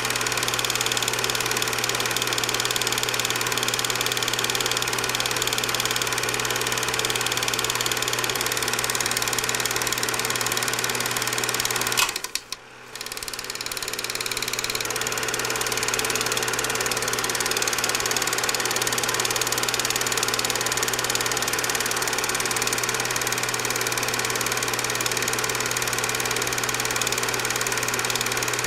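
Cine film projector running, a steady mechanical whirr. It cuts out suddenly about twelve seconds in and comes back over a couple of seconds.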